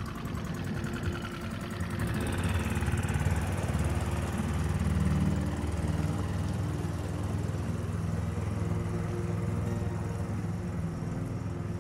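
New Tohatsu 6 HP outboard motor running as the small boat it drives pulls away under power. The engine picks up about two seconds in, then runs steadily and grows a little fainter toward the end as the boat moves off.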